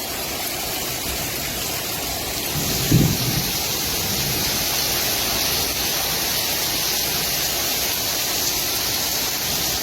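Heavy rain falling steadily, the storm's wind having eased. About three seconds in there is a single short, low thump.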